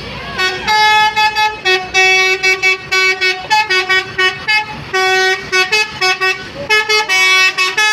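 Telolet basuri bus horn playing a fast melody of short notes that jump from pitch to pitch, starting about half a second in.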